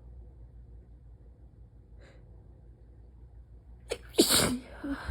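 A woman's sick sneeze, only half stifled: a short sharp catch of breath about four seconds in, then one loud sneeze, with a smaller breathy sound just after.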